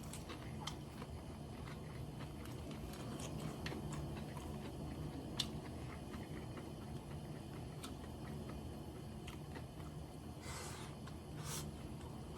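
A person chewing food close to the microphone: scattered small mouth clicks and smacks over a steady low hum, with a sharper click about five seconds in and a short rustle near the end.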